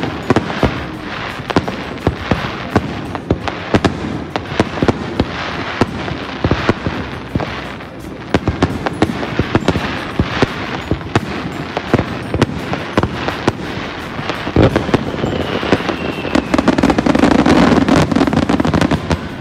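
Fireworks display: aerial shells and ground fountains going off in a dense, rapid string of pops and crackles, swelling into a louder, continuous rumbling barrage near the end, with a faint falling whistle just before it.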